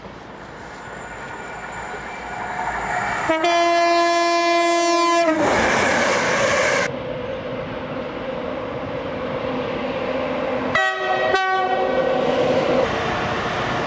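Train horn: a train approaching with rising rail noise sounds one steady horn blast about three seconds in, lasting about two seconds, and then passes with a rushing noise. A few seconds later a train horn gives two short toots in quick succession.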